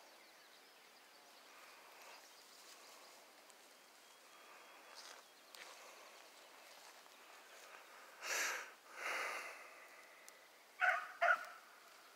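A hunting dog gives two short, sharp barks close together near the end, over faint outdoor background. A little before them come two brief noisy swishes.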